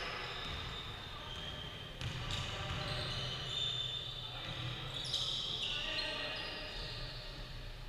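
Basketball game on a hardwood gym court: a ball bouncing, with a couple of sharper thuds about two and five seconds in, many short high-pitched sneaker squeaks, and players' voices calling out.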